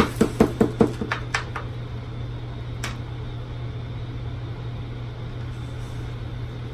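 A metal measuring cup knocking several times in quick succession against a disposable aluminium foil pan as biscuit dough is scooped out into it, with one more knock about three seconds in. A steady low hum runs underneath.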